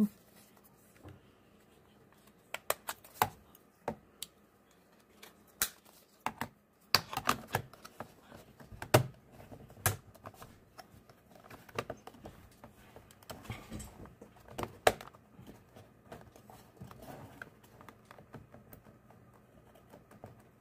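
Irregular plastic clicks and taps as a mini wireless keyboard is handled and pressed down into its bay in a plastic frame, its keys clicking under the fingers; the loudest knocks come in a cluster midway.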